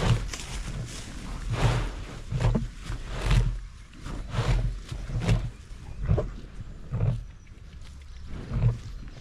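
A cow grazing right at a camera strapped to its horn: close, rhythmic tearing and munching of grass with its breathing, about one pulse a second.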